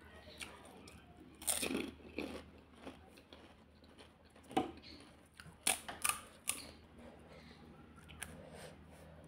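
Crisp pani puri (golgappa) shells crunching as they are bitten, chewed and cracked open. A scatter of sharp crunches, the loudest in short clusters about one and a half seconds in and again around six seconds.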